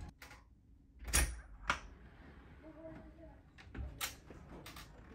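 Cabin door being opened: sharp latch-and-handle clicks and knocks of the door, two about a second in and half a second apart, then a quick cluster of three or four near the end.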